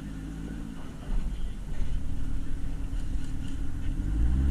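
A car engine running with a low rumble that grows louder about a second in; near the end its pitch rises as it speeds up.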